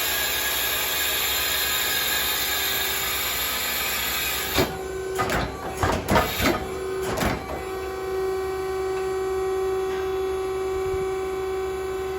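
Steady machine hiss, broken midway by a cluster of short, loud ripping sounds, most likely Velcro and fabric being pulled off a curtain; a steady humming tone follows.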